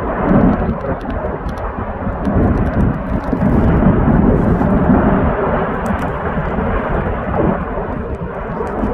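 Erupting Fagradalsfjall volcano giving a deep, continuous rumbling roar that swells and fades in waves, with wind buffeting the phone's microphone and faint scattered ticks above it.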